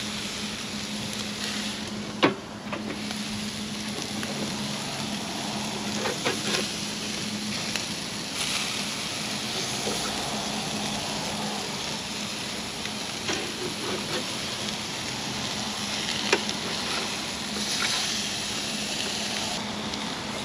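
Burgers frying: a steady sizzle, with a few sharp clicks scattered through it.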